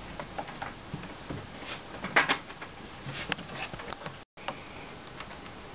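Scattered light knocks and clicks of painted bunk-bed panels being handled and fitted together, the loudest knock about two seconds in.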